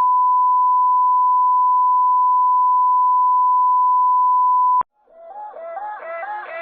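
A single steady, loud beep tone held for nearly five seconds, cutting off suddenly with a click. Then music fades in, a repeating pattern of notes rising in level.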